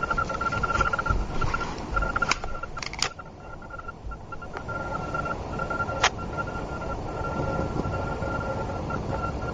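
Newly installed furnace running, a steady rush of air with a thin high whine, broken by a few sharp clicks about two, three and six seconds in.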